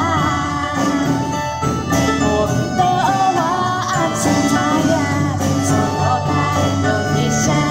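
Live band playing a song: women's voices singing over acoustic guitar, drums and melodica.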